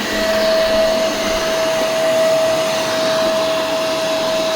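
Shark Duo Powerfins vacuum cleaner running steadily after being switched on: a high, even motor whine over the rush of air. The motor is working.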